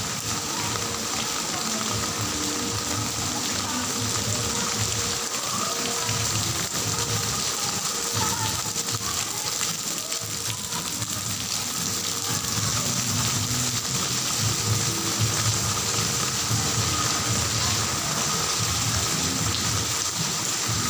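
Heavy rain falling steadily, a constant hiss of water with low tones underneath.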